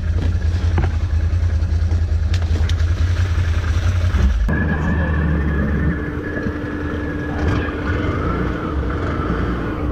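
Can-Am 6x6 ATV's V-twin engine running steadily. About halfway through, the sound changes abruptly to a quieter, steadier engine hum with water washing around the machine as it moves out into the river.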